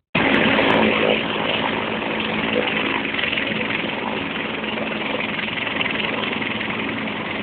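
Military helicopter running steadily, a continuous loud rush of turbine engine and rotor noise.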